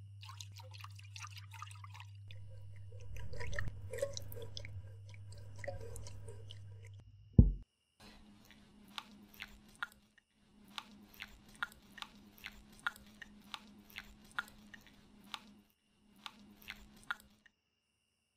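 Spoon stirring a frothy milk mixture in a glass jug over a low steady hum, then a single loud thump about halfway through. After that a wire whisk stirs the milk mixture in a metal saucepan, its wires ticking against the pan about once or twice a second.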